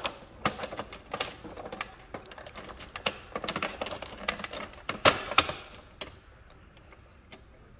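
Plastic clicks and rattles as the paper feed roller assembly is worked and snapped back into the Brother MFC-L6800DW's document feeder, with the sharpest clicks about three and five seconds in. The handling quietens after about six seconds.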